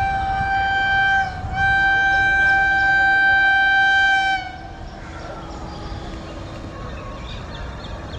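Electric locomotive horn of a WAP-7 sounding a long, steady, high-pitched blast that breaks off briefly about a second in, resumes for about three seconds and then stops. After it comes the quieter running noise of the approaching train.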